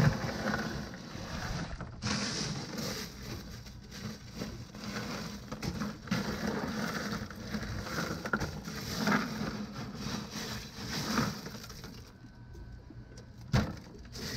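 Crushed ice crunching and shifting as fish are pushed down into it in a boat's fish box, over a steady low hum, with one sharp knock near the end.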